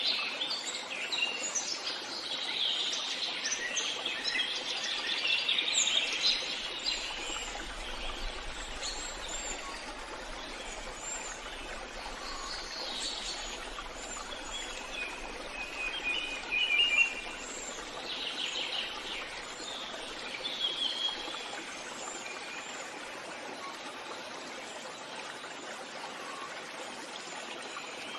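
Forest ambience: several birds singing and chirping over a steady background hiss, the song busiest in the first several seconds and thinning out in the last few.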